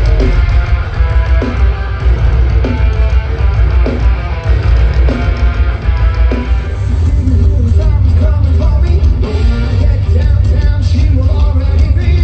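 Loud live rock band with distorted guitars, heavy bass and drums, and singing.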